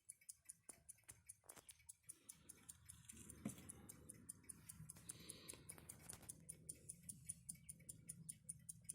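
Alpina pocket watch movement ticking steadily, about five ticks a second, with a faint low rumble behind it from about two seconds in.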